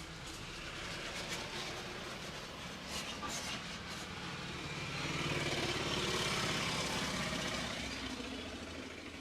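A motor vehicle passing on the street, its engine growing louder to a peak a little past the middle and then fading away. A few sharp clicks sound briefly about three seconds in.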